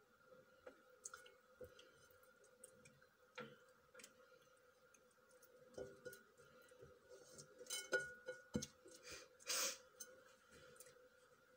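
Faint wet squishing and crinkly plastic rustling of a gloved hand rubbing vegetables in a chermoula marinade on a plate, with scattered small clicks and a louder rustle near the end, over a faint steady hum.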